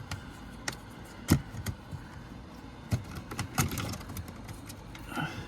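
Irregular clicks and knocks, a drain-cleaning tool being worked inside an RV dryer vent duct to dig out lint, the loudest knock about a second in.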